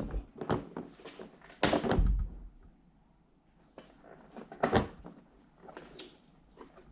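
Cardboard packaging being handled and torn open, heard as a string of separate knocks, scrapes and rustles. The loudest come about two seconds in and again a little past the middle.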